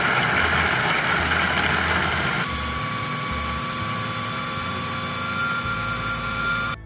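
Food processor motor running steadily; its tone shifts about two and a half seconds in, and it cuts off suddenly near the end.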